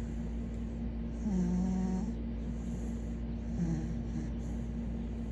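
Sleeping dog snoring: a drawn-out, pitched snore about a second and a half in and a shorter one a little past the middle, with hissing breaths in between.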